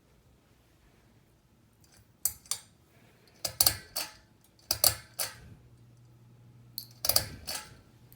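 Hampton Bay Farmington ceiling fan's pull-chain switch clicking several times, the clicks coming in quick pairs, with a low steady motor hum beginning about halfway through.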